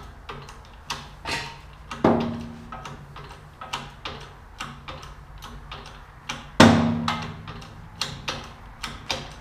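Hand-pumped hydraulic bottle-jack shop press pressing a U-joint out of a driveshaft yoke: the pump handle clicks about twice a second. Twice, about two seconds in and again near seven seconds, there is a loud metallic bang that rings on briefly, the sound of a pressed U-joint cap breaking free.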